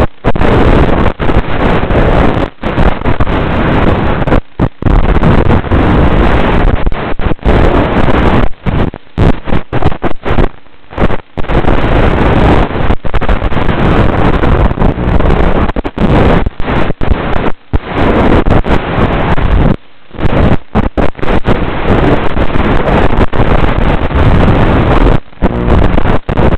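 Loud rushing wind on the onboard microphone of a Hardcore 31 FPV flying wing flying fast and low, broken by many short dropouts.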